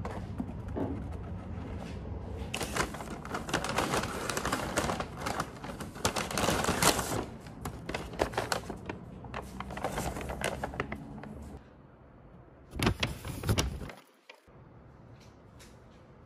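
Brown kraft paper bags and a paper box rustling and crinkling as they are handled and unpacked. The crackle is densest through the middle, with two short loud crinkles near the end before it dies down.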